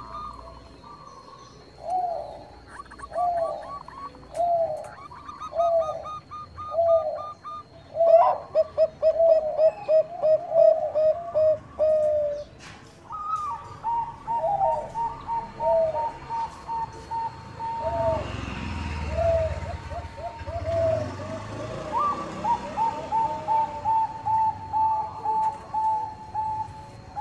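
Zebra doves (Bangkok perkutut) cooing, a long run of repeated short notes, with higher quick notes in the first few seconds. A low rumble rises and fades about two-thirds of the way through.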